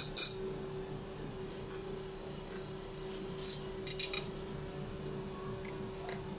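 Cutlery clinking against a plate as a steak is cut with a knife and fork: a few scattered sharp clinks, over a steady background hum.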